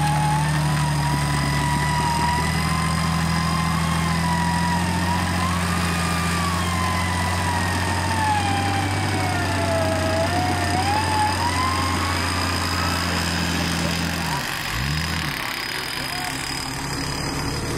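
Jeep Cherokee XJ's engine running steadily while its front winch pulls on a taut cable to drag it out of deep mud, with a whine that wavers slowly up and down in pitch. About fourteen seconds in the low engine note drops away.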